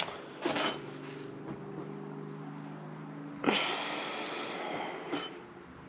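A man lets out a long, heavy sigh about halfway through, a breathy rush lasting about a second and a half, over a steady low hum. A couple of sharp clicks come right at the start.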